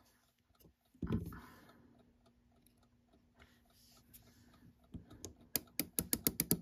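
Alarm train of a Westclox Big Ben Style 7 alarm clock movement let run by hand, its escapement clicking about seven times a second from about five seconds in. A soft knock comes about a second in.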